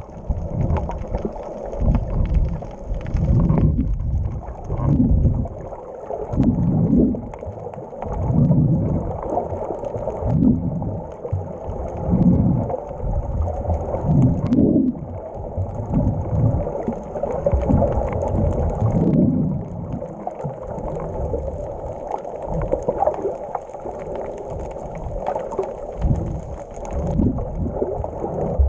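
Muffled underwater sloshing and rumbling, heard through a GoPro's waterproof housing while it is submerged, swelling and fading every second or two.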